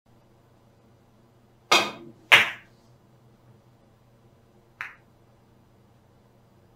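Carom billiard balls clicking sharply, twice about half a second apart near two seconds in, then once more, fainter, around five seconds in, over a faint steady low hum.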